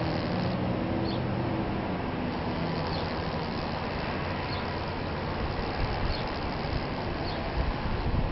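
Steady outdoor background noise: a low rumble and hiss, with a few faint high chirps scattered through and a sharp click at the very end.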